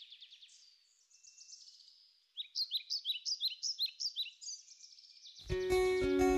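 Small songbirds singing high, quick chirping phrases, with a run of rapid downward-swooping notes in the middle. About five seconds in, an acoustic guitar and other instruments suddenly start playing, much louder, and drown the birds out.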